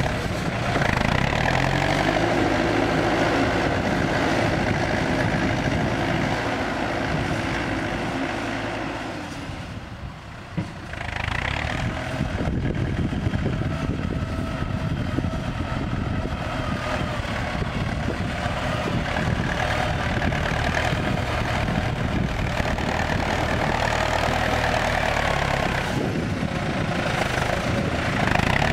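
CLAAS Talos 240 tractor's diesel engine running under load as it pushes soil with its front dozer blade. The sound drops away briefly about ten seconds in, with one short click, then comes back at full level.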